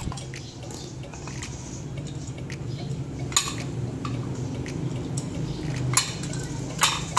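Metal clinking and clanking from a restored aluminium waffle cake pan and its steel handle rods as it is handled, with small ticks throughout. There is one sharp clank about halfway through and two more near the end.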